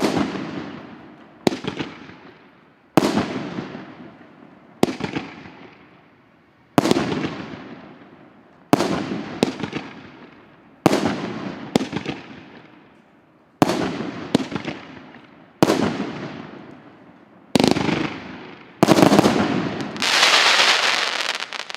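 Multi-shot firework cake of 2-inch shells firing: about a dozen sharp bangs, one every one to two seconds, each trailing off over a second or so. Near the end a denser crackling burst lasts a couple of seconds.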